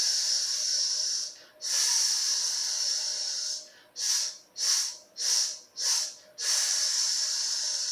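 A man hissing voiceless consonants as a breathing and vocal warm-up, the S, X ('sh') and F sounds of the exercise. There is a long hiss, a second long hiss, four short hisses in quick succession, then another long hiss.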